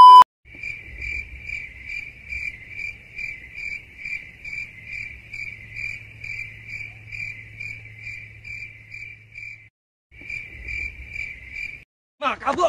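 A short, loud beep at the very start, then a cricket chirping in even pulses about twice a second. The chirping breaks off briefly about ten seconds in, then resumes.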